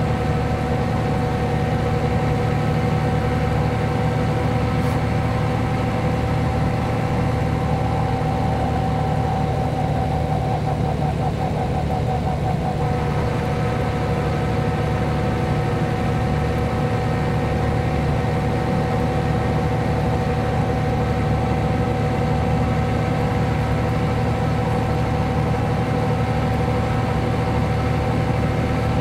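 Mercedes-Benz O 405 G articulated bus's six-cylinder diesel engine idling steadily, with a constant whine over the engine sound.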